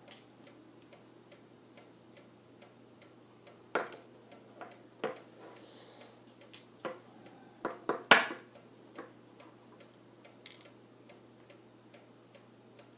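Scattered light clicks and taps of small metal lock parts being handled and set down: the pins, springs and sidebar of a disassembled Medeco lock cylinder. The loudest clicks come about four seconds in and again about eight seconds in.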